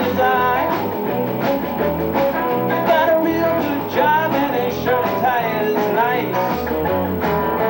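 Live rock-and-roll band playing at full volume: a sung vocal line over a bass line that steps from note to note and steady drums.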